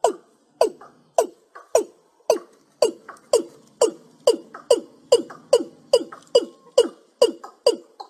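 Watercock calling: a long run of short notes, each dropping in pitch, about two a second and slowly quickening.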